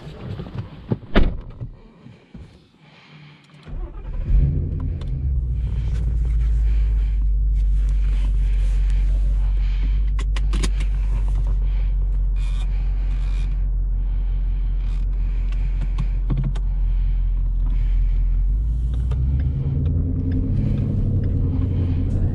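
A car door shuts with a thump about a second in. About four seconds in, the Ford Mustang GT's 5.0-litre V8 starts with a sharp flare and settles into a steady, deep idle rumble.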